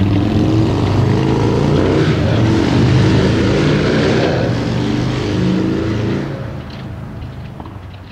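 A motor vehicle passing: a low engine drone with tyre and road noise that builds and then fades away over the last two seconds.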